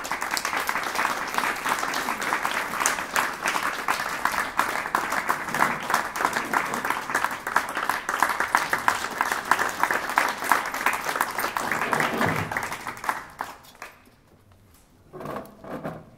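Audience applauding, a dense steady clapping that fades and dies away about thirteen seconds in.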